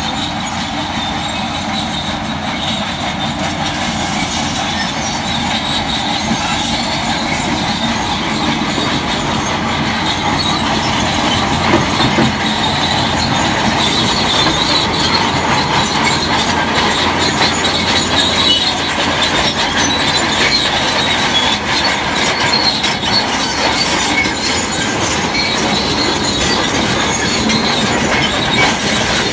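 Heavy tracked earthmoving machine working, its steel crawler tracks clanking and squealing over a steady diesel engine.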